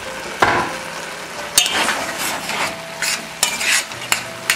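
Metal spoon stirring dried fruit stewing in rum in a stainless steel saucepan, over a steady sizzle from the hot pot, with a few sharp clinks of the spoon against the pan.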